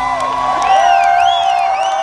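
Rock concert crowd cheering, with rising-and-falling whoops and whistles, as the band's final note rings on from the stage.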